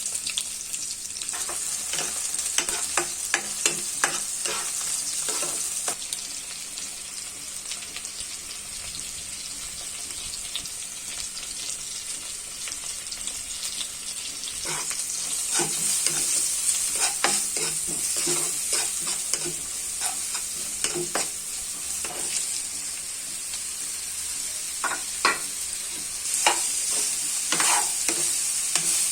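Sweet potato pieces frying in hot oil with a steady sizzle, while a utensil stirs them, knocking and scraping against the pan in several spells.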